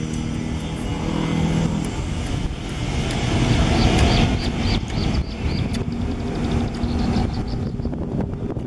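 Wind buffeting the microphone outdoors: a steady low rumble, with a low hum that comes and goes.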